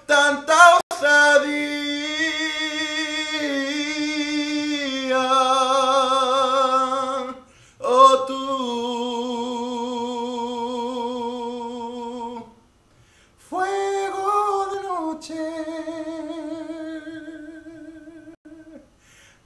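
A young man singing a ballad with no accompaniment, holding long notes with a strong, even vibrato. He sings three long drawn-out phrases, with a brief pause for breath about two-thirds of the way through.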